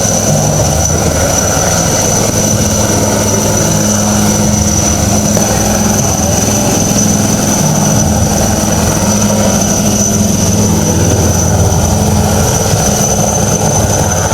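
Helicopter running steadily overhead: a constant turbine whine over the pulsing beat of the rotor.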